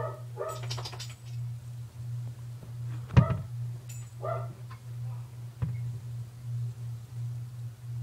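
A dog barking in short yaps several times over a steady low hum, with a sharp knock about three seconds in, the loudest sound, and a softer one near the end.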